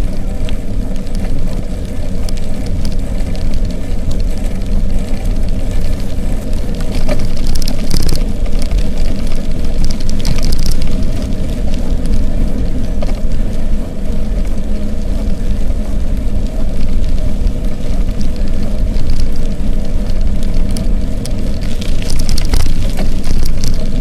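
Wind rumbling over the microphone of a camera on a moving bicycle, with bike tyres hissing over wet pavement that swells briefly a few times.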